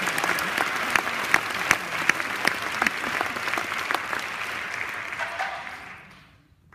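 Audience applauding, with many hands clapping. The clapping fades from about five seconds in and dies away near the end.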